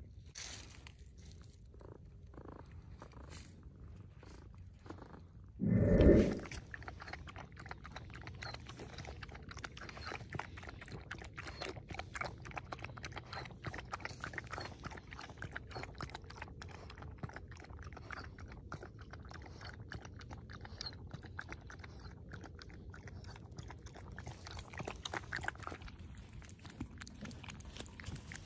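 Cat and dog lapping milk from a stainless steel bowl: a fast, dense run of wet clicks from about six seconds in, with one loud bump at that point and only scattered clicks before it.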